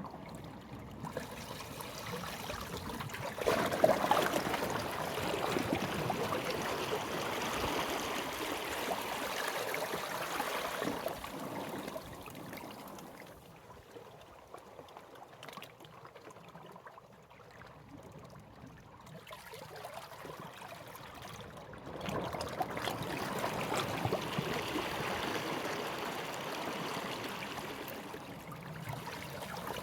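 Sea waves washing up the shore and drawing back, with a hiss and trickle of water. A wave surges in with a sudden rise about four seconds in and runs on for several seconds, the water ebbs quieter, and another wave washes in about two thirds of the way through.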